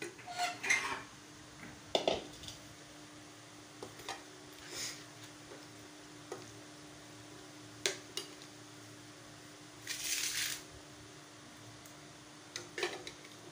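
Metal ladle clinking and scraping against a metal curry pot and steel plates as chicken curry is served out, in scattered knocks a second or two apart, with a longer scrape about ten seconds in.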